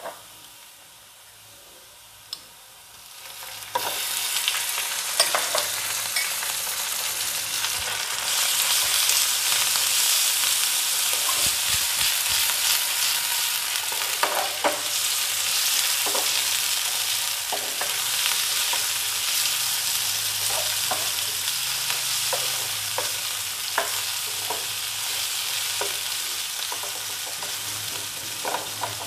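Raw boneless chicken pieces sizzling hard in hot oil and fried onions in a non-stick frying pan, the sizzle starting suddenly about four seconds in as the chicken goes in and growing stronger a few seconds later. A wooden spatula scrapes and knocks against the pan as the chicken is stirred through the sizzle.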